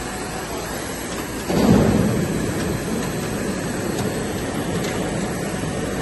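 Steady running noise of a PE double-wall corrugated pipe extrusion line, with a brief louder rumble about one and a half seconds in.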